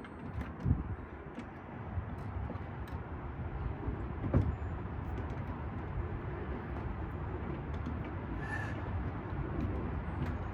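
Hand pop-rivet gun being worked to set a rivet in a truck door: a few scattered clicks and knocks over a steady low background noise, the loudest knock about four seconds in.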